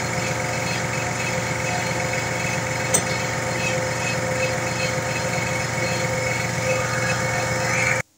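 Air compressor running steadily, with a short sharp click about three seconds in. The compressor cuts off abruptly near the end.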